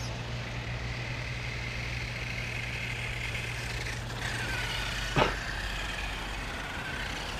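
Electric motor and drivetrain of a brushed 1/10 short-course RC truck whining as it drives over a soft, wet field, over a steady low hum. About five seconds in, a short, sharp whine falls quickly from high to low, the loudest moment.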